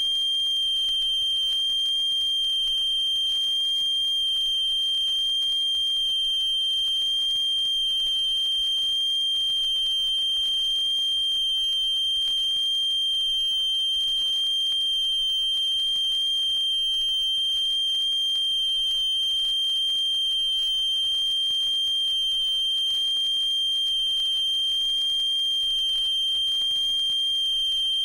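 Steady test tone of about 3 kHz played from a vinyl test record, the wow-and-flutter test signal used to measure turntable speed variation. It holds one unbroken pitch over faint record surface noise.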